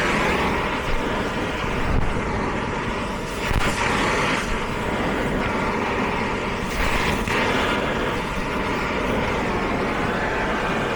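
Gas torch flame burning with a steady rushing noise, heating a differential bearing so it can be removed.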